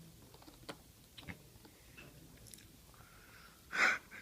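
A cat chewing and biting at catnip on a cat scratcher: scattered soft clicks and small crunches, then one louder, brief rustle near the end.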